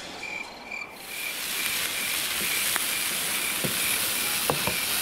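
Chicken, red pepper and corn sizzling in a frying pan, the hiss starting about a second in, with a few clicks of a spoon stirring against the pan. Behind it, a steady high chirp repeats about three times a second.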